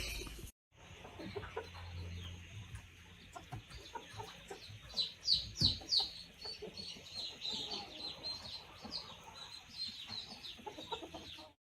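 Birds chirping in quick runs of short, high, falling chirps, thickest around the middle.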